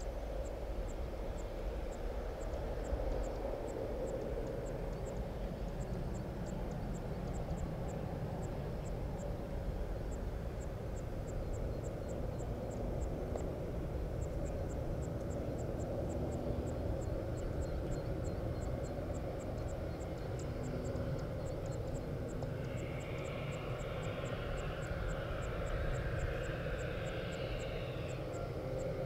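Steady hum and low rumble around a parked Boeing 787 airliner at the gate, with a faint, fast, high ticking over it.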